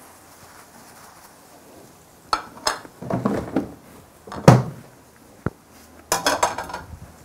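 Kitchen dishes and utensils being handled: a plate clinking and knocking on a counter, with a run of sharp clicks and one heavier thunk in the middle, then a last burst of clinks near the end.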